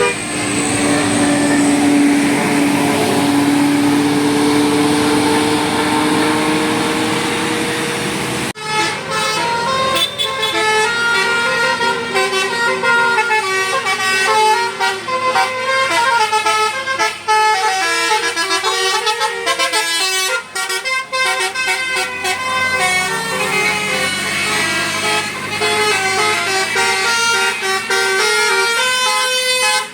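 A bus's telolet basuri multi-tone musical air horn playing a quick melody of short stepped notes, rising and falling. Before that, after a sudden cut about eight seconds in, there is a noisy passing-vehicle sound with a long held horn tone.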